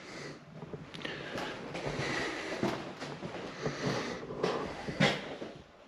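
Footsteps and rustling handling noise from someone walking on a hard floor, with scattered light knocks and a sharper click about five seconds in.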